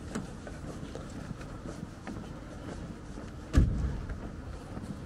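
Faint footsteps on pavement over a steady low city background, with one loud thud about three and a half seconds in.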